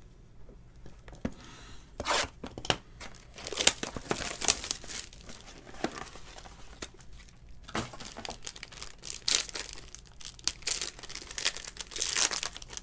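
Silver foil wrapper of a trading-card pack being torn open and crumpled by hand: a run of crinkling and ripping that starts about two seconds in and goes on in uneven spurts.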